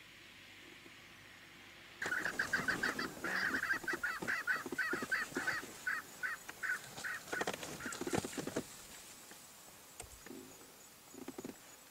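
A bird calling: a rapid run of short, repeated notes that starts suddenly about two seconds in, slows as it goes, and stops after about six seconds.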